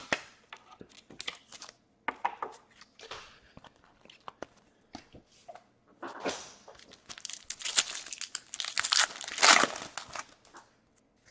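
Plastic or foil trading-card pack wrapper being crinkled and torn open, with scattered clicks of card handling. The crinkling grows denser and louder in the second half.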